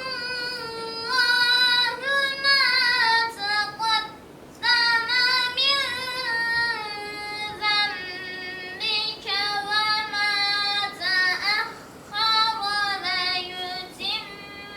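A boy's solo voice reciting Quran verses in the melodic chanted style, drawing out long ornamented notes that glide up and down. There is a short pause for breath about four seconds in and another near twelve seconds.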